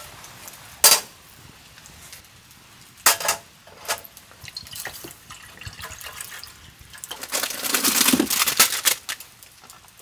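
A few sharp knocks, then water poured from a plastic bottle into an aluminium mess tin for about two seconds near the end, filling it to boil.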